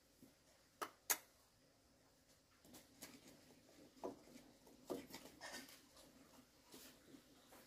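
A quiet room with a few small clicks and light knocks. Two sharp clicks come close together about a second in, followed by scattered soft tapping and rustling.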